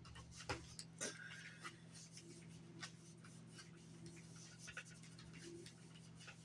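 Microfiber cloth wiping and polishing the outside of a PS5 Pulse 3D headset: faint rubbing and scuffing with a few light clicks from handling the plastic, strongest about half a second and a second in, over a steady low hum.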